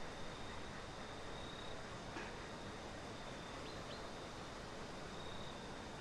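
Outdoor ambience: a steady background hiss with a faint, thin, high insect trill that comes and goes, and a couple of faint short chirps.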